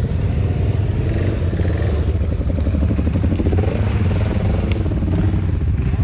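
Dirt bike engine running on a trail ride, heard close from a helmet camera, its pitch rising and falling with the throttle.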